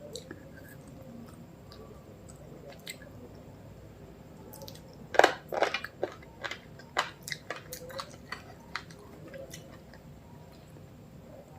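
Close-miked chewing and crunching of food: a few scattered crunches, then a run of crisp bites and chews from about five to nine seconds in, the loudest at the start of that run.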